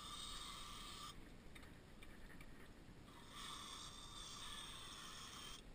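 Aerosol can of throttle body cleaner hissing as it is sprayed into a gunky throttle body. There are two sprays: a short one of about a second at the start, then a longer one of about two and a half seconds from about three seconds in.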